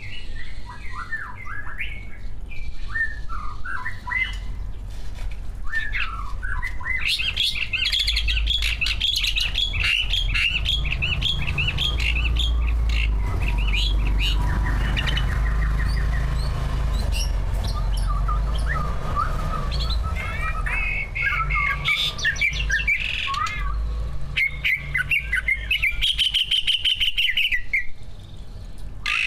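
Cucak ijo (green leafbird) singing a fast, varied song of chirps, trills and gliding whistled notes, the full song of a trained contest bird packed with learned phrases. A low rumble runs beneath the song through the middle.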